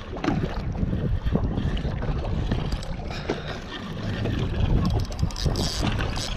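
Steady low rumble aboard a fishing boat, with wind buffeting the microphone and scattered light knocks.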